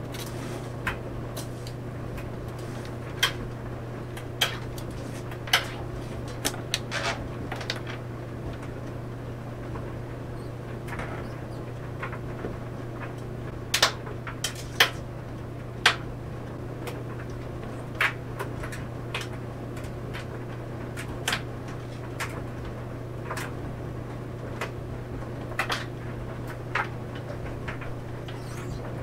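Clothes dryer running with a steady low hum as the laundry tumbles in the drum, giving irregular sharp clicks and knocks about once a second.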